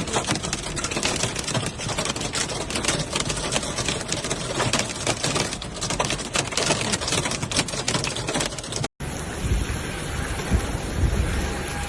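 Heavy downpour drumming on a hard surface in a dense, rapid patter. About nine seconds in it cuts off abruptly to a steady, low rushing noise.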